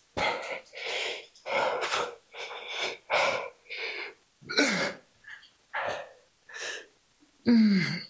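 A man breathing hard and forcefully in short, sharp puffs, about a dozen in a row, in time with the reps of a dumbbell lateral raise set. A strained grunt with a falling pitch comes about halfway and another near the end.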